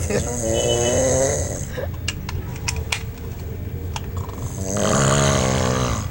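A man snoring heavily: two long, loud snores about four seconds apart, with a few short clicks between them.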